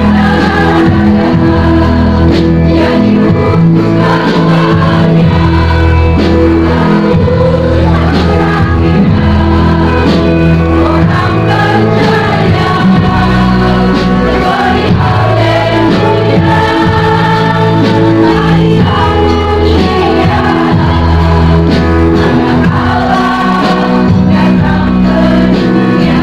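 Loud background music with singing over a steady, repeating bass line.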